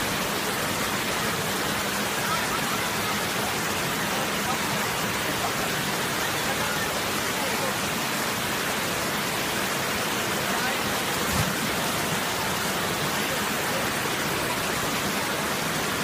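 Waterfall and its pool's rushing water making a steady, even hiss. About eleven seconds in there is a single brief low thump.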